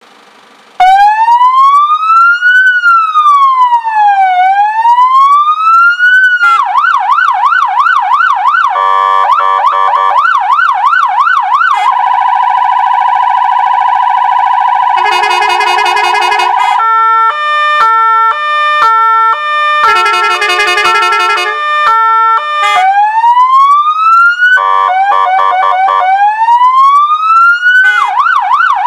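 Electronic siren of a Peugeot Boxer fire engine run through its tone patterns after about a second of quiet. It plays a slow rising-and-falling wail, then a fast yelp, a steady held tone, a rapid warble, and a pattern of tones stepping between pitches, then goes back to wail and yelp.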